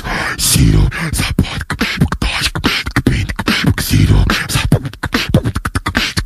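Beatboxing: a fast, continuous run of sharp mouth clicks and snare-like hits over recurring deep bass thumps.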